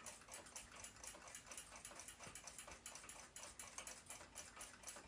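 Faint, fast, even ticking of a mechanical clock movement.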